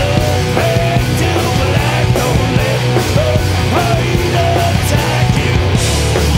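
Heavy metal band playing live and loud: distorted electric guitars, bass and a drum kit, with harsh vocals into the microphone.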